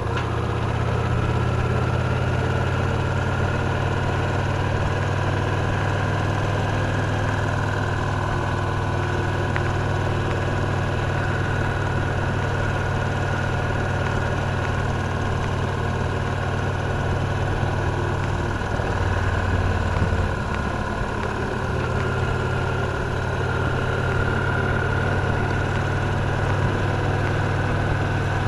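Victory Cross Roads Classic LE motorcycle's 1700 cc V-twin engine running steadily with a deep, even hum. About two-thirds of the way through, the engine note shifts and briefly drops before settling back.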